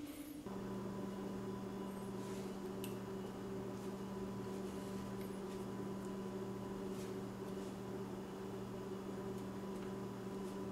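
A steady low hum with a faint buzz above it, starting about half a second in.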